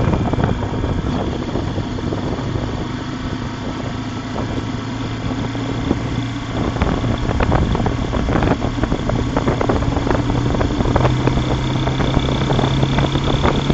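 Lifan KPX 250 motorcycle's single-cylinder engine running steadily at low town speed, with road and wind noise. Heard through the dash cam's own microphone, so it sounds dull with no top end.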